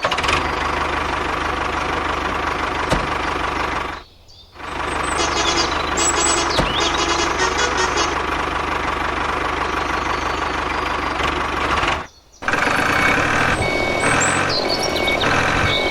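A small motor running steadily, cutting out briefly twice: about four seconds in and about twelve seconds in.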